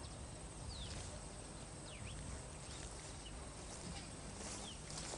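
Faint outdoor ambience: a steady low rumble and hiss, with a handful of short, high, falling chirps from small animals, likely birds.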